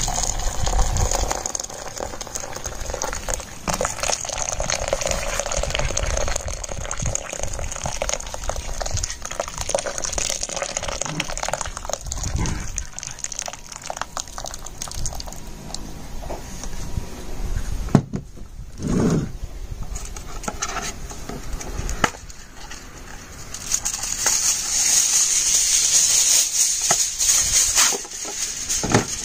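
Water poured in a steady stream from an electric kettle into a slow cooker's crock, splashing around a glass jar. Near the end, aluminium foil crinkles as it is pulled out.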